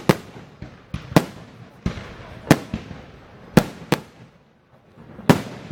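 Fireworks bursting: a run of about eight sharp bangs at uneven spacing, some in quick pairs, over a lower steady noise, with a brief lull a little past halfway.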